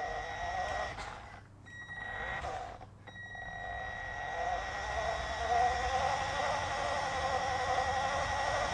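Toy RC Mini Cooper's electric drive motor and gears running as the car drives in circles, with a steady high-pitched whine from its speed controller (ESC ringing). The drive sound cuts out twice, briefly, in the first few seconds, then picks up and wavers in pitch.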